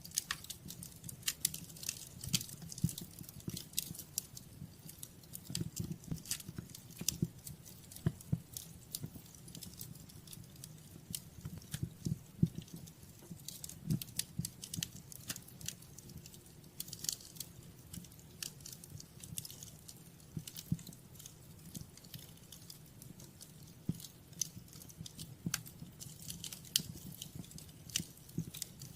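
Wood fire crackling in a fireplace: many irregular sharp crackles and pops over a low steady rumble.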